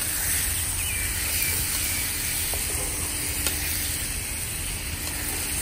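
Marinated chicken pieces frying in hot oil in a pan over an outdoor fire, a steady sizzling hiss, with one light click about three and a half seconds in.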